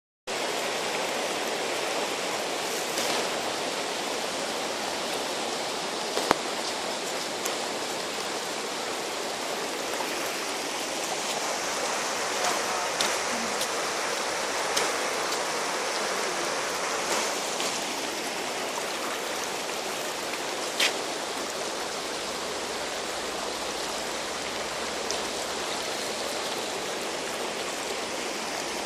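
Flood-swollen, muddy river rushing fast and steadily, with a few sharp clicks, the loudest about six seconds and about twenty-one seconds in.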